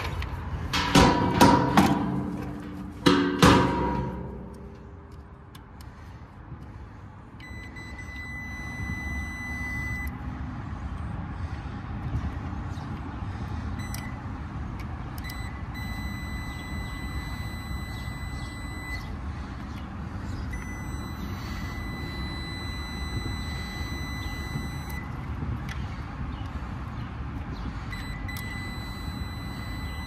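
A Fieldpiece SC260 clamp meter's continuity beeper sounds a steady high beep several times, each for a few seconds, with one short blip, during a check of the condenser's compressor circuit for shorts to ground. Loud clattering knocks come in the first few seconds, over a low steady background rumble.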